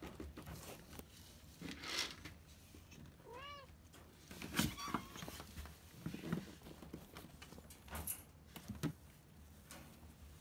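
A cat gives one short meow about a third of the way in, its pitch rising and falling, amid intermittent brief scuffing and rustling noises.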